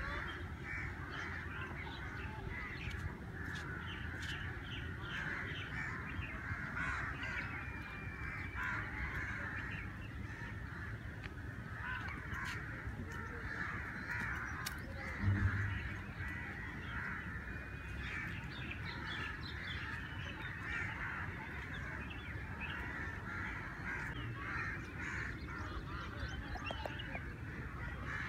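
Many birds calling at once in a dense dawn chorus of short, overlapping calls, over a steady low rumble. A single dull thump about halfway through.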